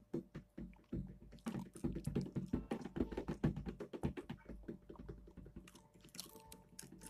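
A dog chewing and crunching Cracker Jack caramel popcorn and peanuts, a quick irregular run of crisp crunches.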